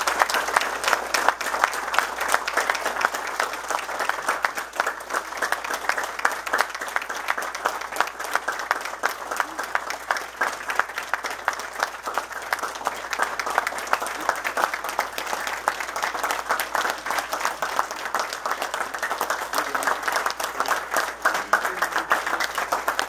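A roomful of people applauding, a long unbroken run of dense clapping.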